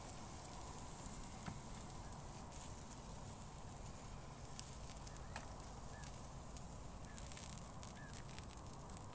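Quiet outdoor ambience: a steady low wind rumble with scattered faint clicks and crackles, and a few short faint chirps in the second half.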